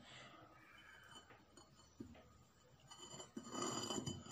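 Upper stone of a traditional hand quern being handled by its metal rod handle: a faint tap about two seconds in, then from about three seconds rough stone-on-stone scraping with light clinking as the upper stone is lifted off the lower one.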